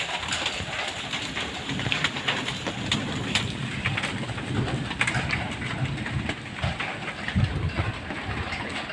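Heavy rain pattering on a corrugated zinc roof: a dense clatter of drops over a steady low rumble.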